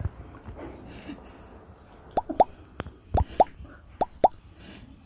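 Short, pitched popping sounds in three quick pairs, each pop sweeping upward, starting about two seconds in and coming roughly a second apart.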